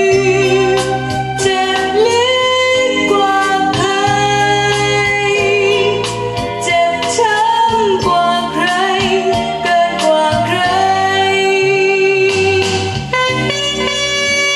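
Music played from a vinyl LP on a vintage Dual 701 turntable: a song with a singing voice over a steady pulsing bass line.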